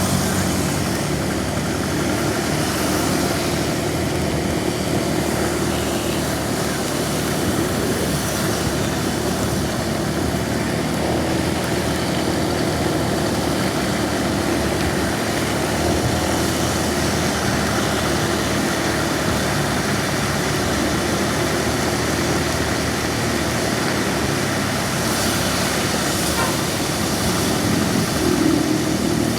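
Steady drone of a vehicle engine under way, with an even hiss of road and wind noise over it.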